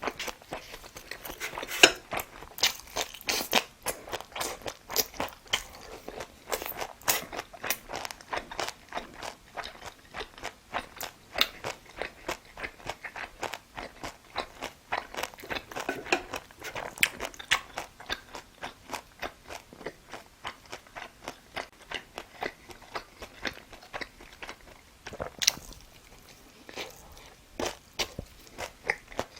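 A person chewing food: a rapid, irregular run of short clicks and crunches, which eases off for several seconds about two-thirds of the way through and then picks up again.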